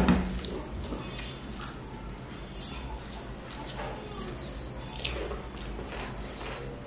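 Eating by hand from a stainless steel plate: fingers squishing rice and wet chewing and lip-smacking with scattered small clicks. One sharp knock with a short low ring right at the start.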